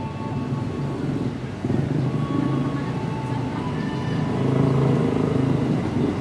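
KRL Commuter Line 205 series electric commuter train arriving at the platform, a steady low rumble of its motors and wheels that grows louder as it nears.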